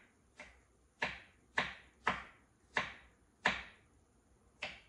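Kitchen knife chopping cooked carrots into small cubes on a cutting board: about seven sharp chops, roughly two a second, with a short pause before the last one.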